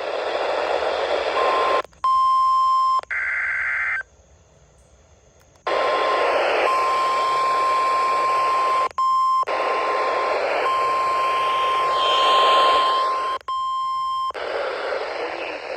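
A weak NOAA Weather Radio broadcast (a distant station) received through heavy static, with the 1050 Hz warning alarm tone of a weekly test faintly coming through as a steady beep. The signal drops out briefly twice, and short bursts of other buzzy tones break in.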